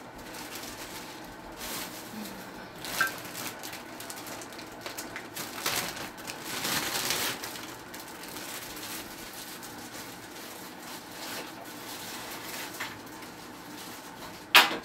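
Plastic bag crinkling and rustling as it is handled, loudest about six to seven seconds in, with a sharp knock near the end.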